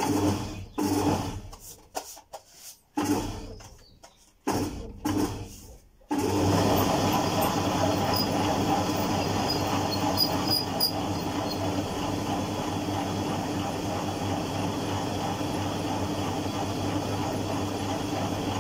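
Motor-driven noodle-making machine running as its rollers press and cut a sheet of dough into noodle strands. The hum cuts in and out several times over the first few seconds, then runs on steadily.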